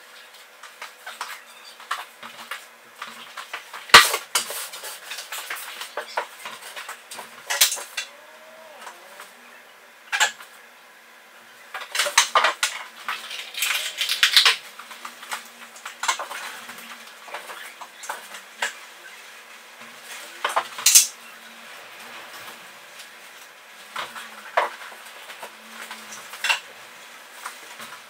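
Clicks, taps and knocks of hand tools and MDF panels being handled and set down in a bare, echoing room. A louder knock comes about four seconds in and another around twenty-one seconds, with a busier spell of rattling between about twelve and fifteen seconds.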